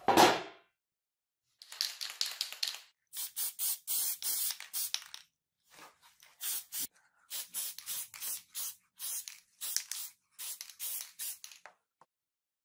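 A thump as the knife is set down on the table, then a sprayer hissing out many short bursts of spray over the knife and its sheath, stopping near the end.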